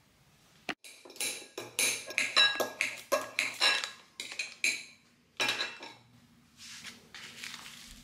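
Breakfast tableware being handled: spoons, bowls and plastic yogurt pots clinking and knocking against a table in a quick, irregular run of sharp clicks, some ringing briefly. Near the end there is a softer rustle.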